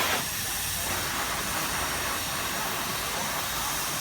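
Steady hiss of escaping steam with no whistle note sounding, after a brief louder gush at the very start.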